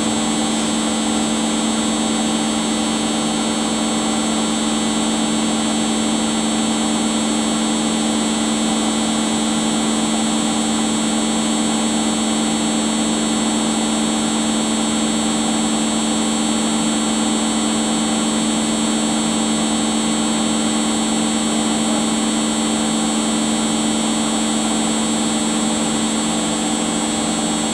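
Household appliance motor running steadily, a constant hum with a high whine above it that does not change.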